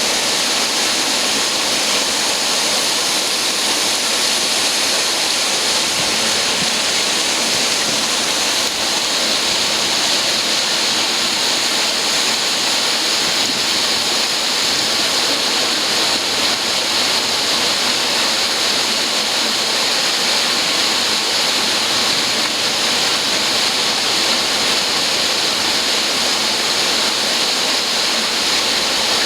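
Industrial duct-cleaning vacuum running steadily: a constant, loud rushing hiss of air.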